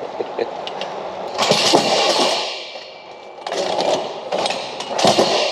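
Metal load locks (trailer cargo bars) rattling and clanking as they are carried and handled, in three noisy bursts.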